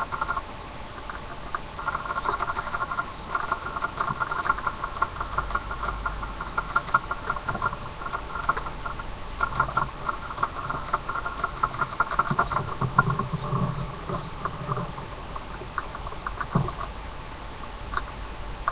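Pet rat scrabbling about, a rapid light pattering and scratching that comes in stretches with short pauses. There is a single dull knock near the end.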